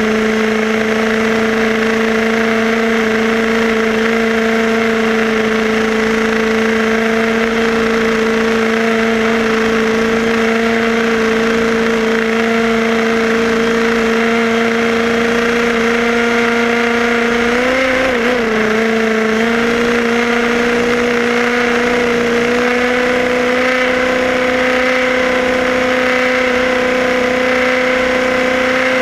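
HPI Baja 5B SS RC buggy's small two-stroke petrol engine running steadily at high revs while the car drives along, its pitch creeping slightly upward, with a brief dip and recovery of the throttle about two-thirds of the way through.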